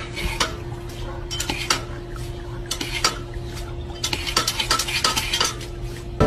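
A dog nosing and pushing at a dish on the ground: irregular hard clinks and clatters of the dish being knocked about, over a steady faint hum.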